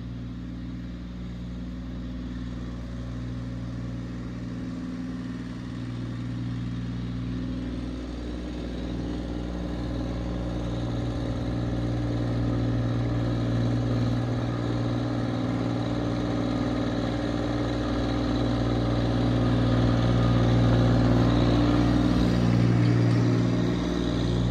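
Massey Ferguson 1723e subcompact tractor's three-cylinder diesel engine running at a steady speed as the tractor drives up, growing steadily louder as it approaches.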